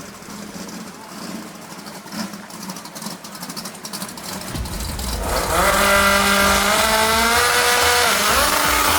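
Race car engine accelerating hard, coming in about halfway through and climbing steadily in pitch, then briefly dropping and picking up again near the end, like a gear change under full throttle.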